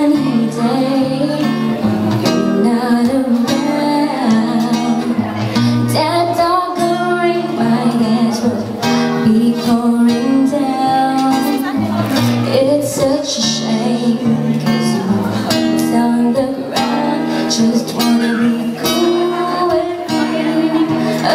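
Acoustic guitar played in a picked, strummed accompaniment while a woman sings a slow pop ballad into a microphone.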